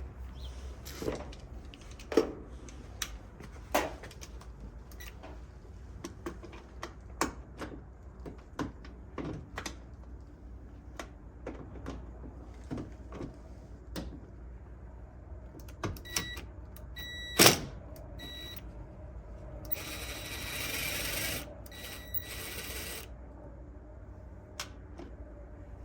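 Scattered clicks and knocks of parts and tools being worked on a truck door handle, with one sharp knock about halfway through. A few short beeps come just before that knock, and about three seconds of hiss follow a little later.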